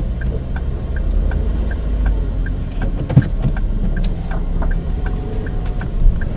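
Cabin sound of a moving Ford Focus 2: a steady low road and engine rumble, with the turn-signal indicator ticking evenly about three times a second. A single knock sounds about three seconds in.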